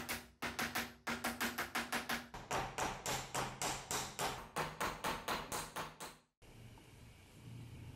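Small hammer tapping on a brass bolster set on a steel block, peening the pins that hold it to a dagger's steel tang: quick sharp metallic strikes, about three to four a second, over a low ringing tone. Near the end the strikes stop abruptly and a fainter steady noise follows.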